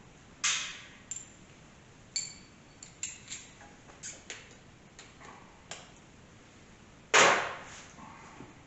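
Air ratchet running in two short bursts on oil pan bolts, about half a second in and again, loudest, near the end. Between them come light metallic clicks and clinks of tools and bolts.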